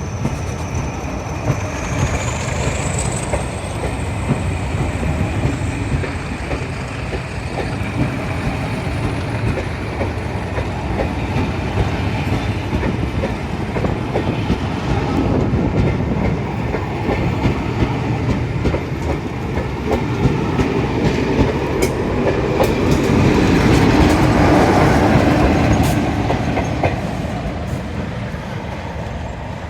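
A train running past, its wheels clattering over the rail joints, with a high thin whine that rises in pitch about two seconds in. The rumble swells to its loudest about three-quarters of the way through, then eases.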